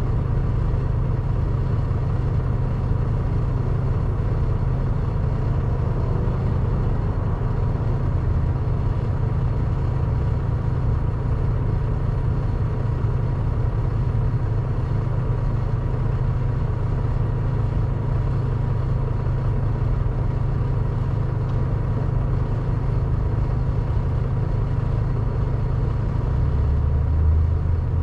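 Tractor-trailer's diesel engine idling with a steady low rumble; a deeper note swells near the end.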